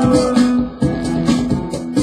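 Guitar playing chords in a steady rhythm, about two strokes a second, in an instrumental stretch of a song.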